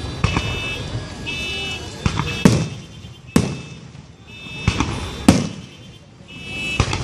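Consumer fireworks going off: a string of sharp bangs, about seven in all and irregularly spaced, the loudest near two and a half and five seconds in. Between them a high electronic tone sounds over and over in short bursts of about half a second.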